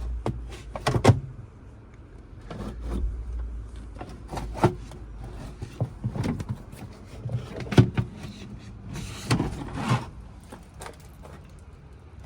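Scattered knocks, clicks and rustling of things being handled in a vehicle cab, with the louder knocks about a second in and near the middle, over a low steady hum at first.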